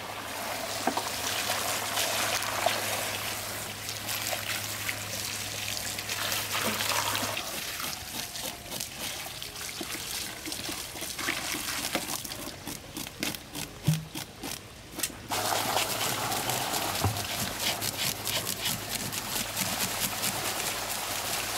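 Water poured from a steel pot trickling and splashing over whole red pomfret in a large steel platter as hands wash the fish, with scattered clicks and knocks of hands and knives against the fish and platter.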